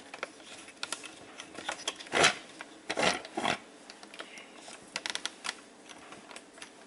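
Handling noise from a camera being repositioned: scattered small clicks with three louder rubbing scrapes around the middle.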